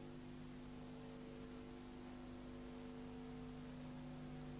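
Faint, steady electrical hum of a few even low tones over light hiss, with no other sound.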